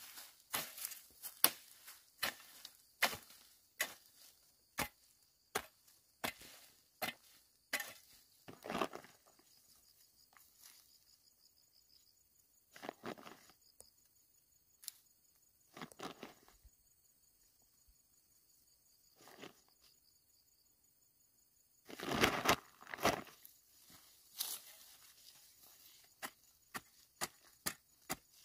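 Hoe blade chopping into dry soil in steady strokes, a little over one a second, for the first several seconds. After that come scattered scuffs and rustles of soil being worked by hand, a louder flurry about two-thirds of the way through, and a quick run of small scrapes near the end.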